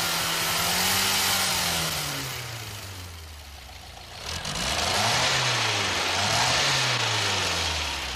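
Car petrol engine being revved up and down: one slow rise and fall, a dip back toward idle, then two quicker revs in a row.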